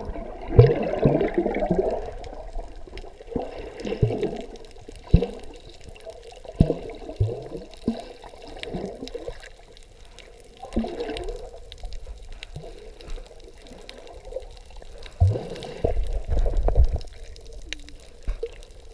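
Sea water sloshing and bubbling close to the microphone, with irregular gurgles about once a second.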